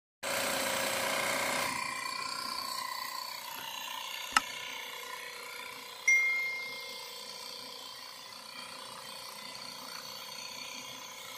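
Small portable 12-volt tyre inflator running steadily, its piston motor buzzing as it pumps air into a car tyre. A sharp click comes about four seconds in, and a short high chime about six seconds in.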